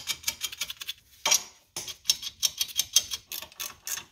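Hand ratchet wrench clicking rapidly, about eight to ten clicks a second, as it runs down the nuts holding a new upper ball joint to the control arm. The clicking breaks off briefly about a second in, with one louder clink, then resumes.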